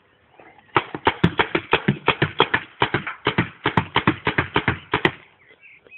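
Paintball gun firing a rapid string of shots, about five or six a second, starting about a second in and stopping suddenly some four seconds later.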